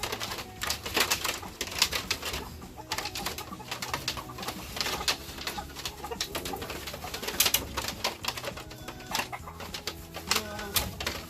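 Backyard chickens calling: a run of short, sharp chick peeps throughout, with low wavering hen clucks about six and a half seconds in.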